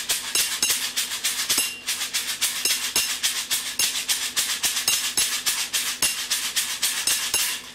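A homemade kitchen shaker shaken in a steady rhythm, about five strokes a second, with a glass tapped with a chopstick giving quiet, high dinks among the strokes. Both stop just before the end.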